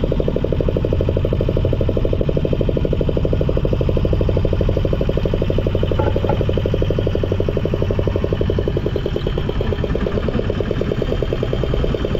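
Outboard motor of a small fishing boat running steadily, a fast, even putter with no change in speed.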